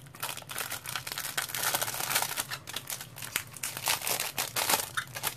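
Clear plastic protective film crinkling and crackling as it is peeled off and handled by hand.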